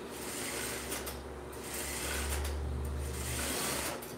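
Juki industrial straight-stitch sewing machine running and stitching a seam. The motor hum grows stronger about halfway in and stops shortly before the end.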